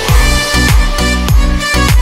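Background music: an upbeat dance track with a deep kick drum on a steady beat, about every 0.6 s, and sustained tones above it. The beat comes in right at the start.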